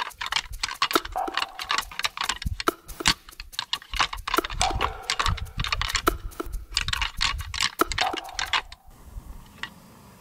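A pair of deer antlers clashed and ground together in quick, irregular clattering clicks: antler rattling, which imitates two bucks sparring in order to draw in a buck. The clatter stops about nine seconds in, leaving only a few faint clicks.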